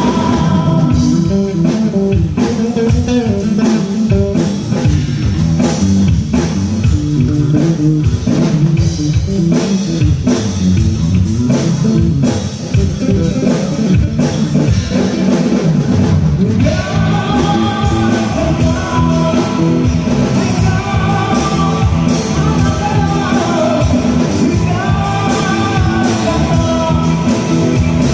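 Live rock band playing loudly: electric guitars, bass and drum kit. A high melody line comes in over the band about halfway through.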